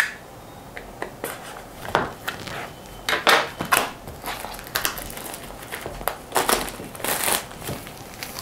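Plastic shrink-wrap on a smartphone box crinkling and crackling as it is peeled and torn off by hand, in irregular bursts that are loudest about three seconds in and again near the end.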